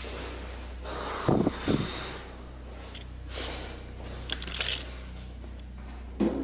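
Footsteps and rustling handling noise from someone walking through an empty room, with a few hissing breaths over a steady low hum; two soft thuds about a second and a half in are the loudest sounds.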